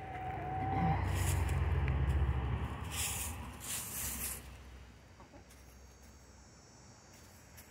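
Chickens at a pile of dry leaves: one long, slightly wavering hen call at the start, then clucking and rustling in the leaves. A low rumble is loudest in the first half and dies away after about four seconds.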